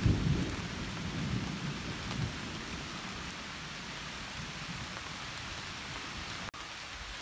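Steady rain falling on the leaves of the tree canopy, with a low rumble of thunder that fades away over the first couple of seconds. The sound drops out for an instant near the end.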